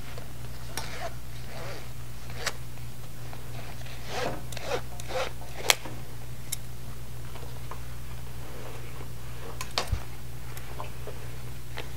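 Gait belt being unbuckled and its webbing pulled free around a seated person's waist: scattered short rasps and clicks from the buckle and strap, with one sharp click a little before the middle. A steady low electrical hum runs underneath.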